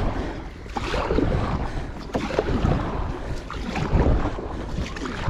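Water sloshing and splashing against a kayak's hull, with wind buffeting the microphone as a low rumble.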